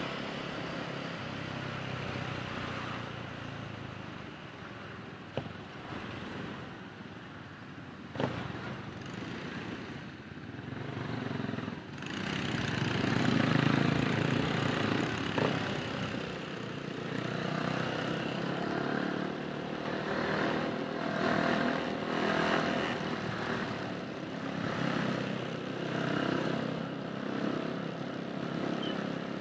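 Motorcycle riding slowly through dense traffic: its engine running with road and wind noise, getting louder for a few seconds about halfway through. A few short sharp clicks are heard along the way.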